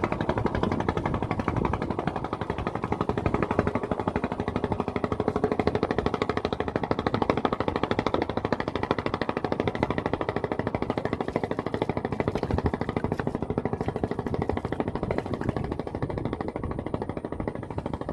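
A small boat engine running steadily, with fast, even pulses.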